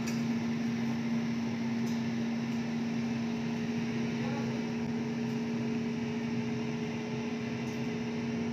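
Air fryer running: its fan motor giving a steady, even hum while it cooks at 160 °C.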